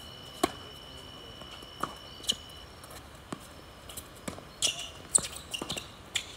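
Tennis rally on a hard court: sharp pops of racket strings striking the ball and the ball bouncing on the court, a dozen or so at uneven spacing. The loudest come about half a second in and about five seconds in.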